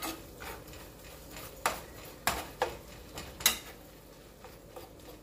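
Metal kitchen utensils clinking against cookware: about five sharp clinks, each with a short ring, the loudest about three and a half seconds in.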